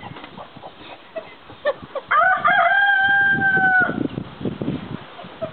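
A white-crested black Polish rooster crowing once: a single held call of about two seconds that starts about two seconds in, after a few short clucks.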